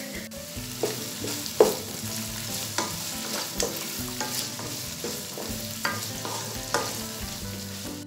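Chopped onions sizzling in hot oil in a pot while a wooden spoon stirs them, scraping and tapping against the pot about once or twice a second.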